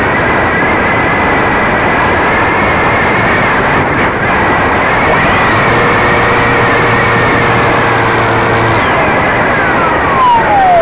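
Radio-controlled model aircraft's motor running steadily, heard from a camera mounted on the model, a high whine over rushing noise. Near the end a second tone slides down in pitch.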